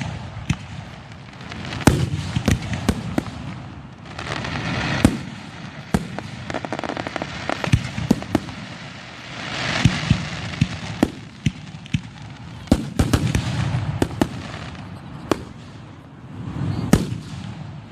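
Aerial fireworks shells bursting close by: many sharp bangs in quick, irregular succession over a low rumble, with two longer hissing, crackling stretches near a quarter of the way in and around halfway.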